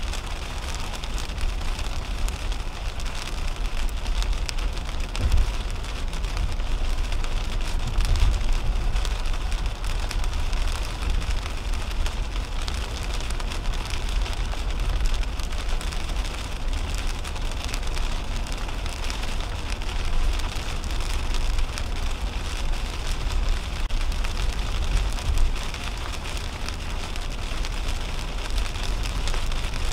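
Heavy rain hitting the windshield and roof of a 2010 Toyota Camry at highway speed, heard from inside the cabin, over a steady low rumble of tyres on the wet road. The rumble swells briefly a few times.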